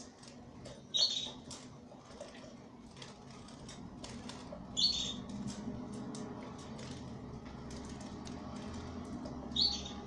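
Canary bathing in a clip-on plastic bird bath, its wings fluttering and splashing water against the dome in quick patters. Three short high chirps stand out, about a second in, near the middle and near the end.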